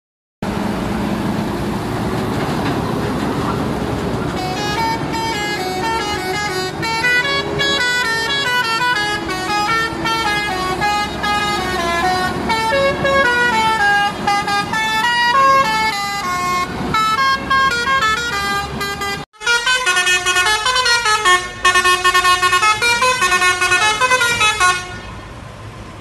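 Basuri (telolet) musical air horn on a lorry playing a tune in quick stepped notes, starting about four seconds in over the running truck engine. After a cut, another lorry's basuri horn plays a different tune in the same stepped way.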